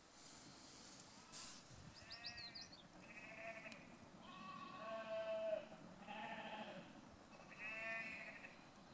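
Goats bleating: about five short, high bleats in a row, each lasting under a second.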